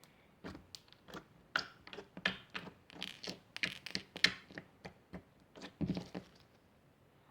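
Small objects being handled and put aside: a quick, irregular string of clicks, taps and crinkles that stops about six and a half seconds in.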